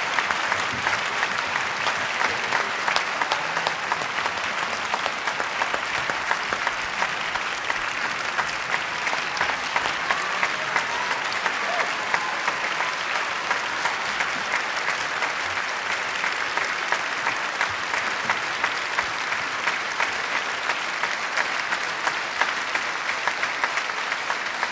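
Audience applauding, dense clapping at a steady level throughout.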